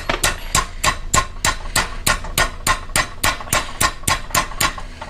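Hammer striking a metal rod in rapid, steady blows, about three to four a second, each with a short metallic ring, to bend the rod into shape.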